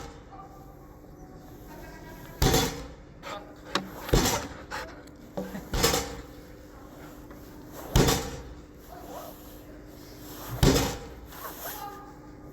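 Dog agility seesaw plank banging down onto its base: five loud bangs, one every two to three seconds, with a few lighter knocks between them.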